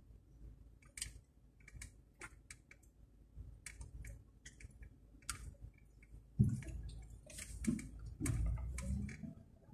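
Faint scattered clicks and small rattles heard inside a slowly rolling car, with a few louder low thumps and brief rushes of noise in the last three seconds.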